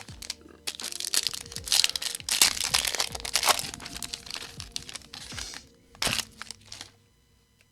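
A foil trading-card pack wrapper being torn open and crinkled by hand: dense crackling, with a sharp crack about six seconds in. It stops about seven seconds in.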